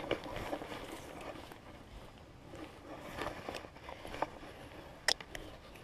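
Quiet handling sounds of a freshly landed largemouth bass being gripped and unhooked on the grass: rustling with scattered light clicks, and a sharp click about five seconds in.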